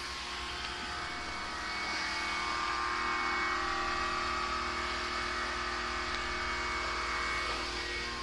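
A mobile car-wash machine's high-pressure cold-water pump (about 70 kg pressure) runs steadily with a constant hum. The hiss of the water jet from the spray gun plays against a van's body over it.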